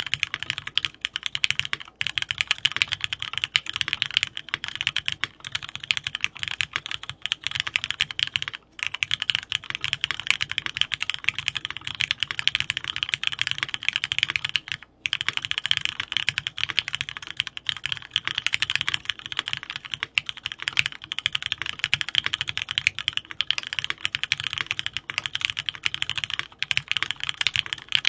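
Fast, continuous clicking of keys typed on a computer keyboard, with two brief pauses, about 8.5 and 15 seconds in.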